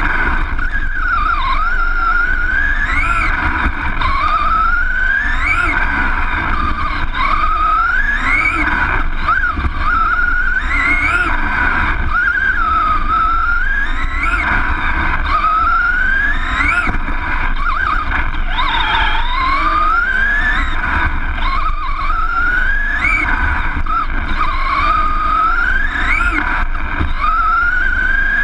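RC buggy's motor and gears whining up and down in pitch, climbing on each straight and dropping into each turn roughly every two to three seconds, over a steady rumble of tyres and chassis on a dirt track.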